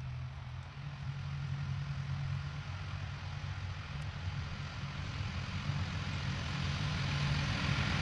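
Tractor engine running steadily, a low hum that grows gradually louder.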